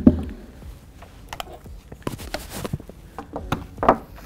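Hollow plastic hydroponic bucket knocking down onto a table on its legs as it is tamped level, followed by light knocks and rustles as the small circulation pump and its cord are handled, with a firmer knock near the end as the pump is set down.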